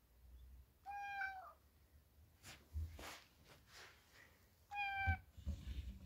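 Scottish Fold cat meowing twice from inside a cupboard: a short call about a second in that dips slightly at the end, and a shorter one about five seconds in. Light knocks and rustles come between and after the calls.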